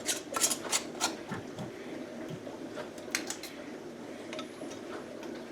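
Light clinks and scrapes of glass canning jars and their metal lids being handled and screwed closed, with a few sharp clicks near the start and again about three seconds in.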